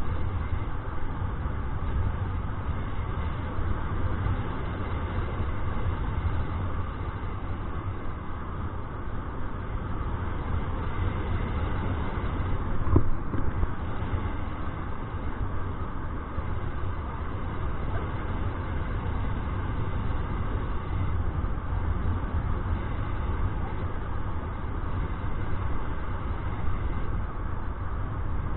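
Wind rushing over the microphone of a camera carried in paraglider flight: a steady, deep rushing noise, with one brief knock about halfway through.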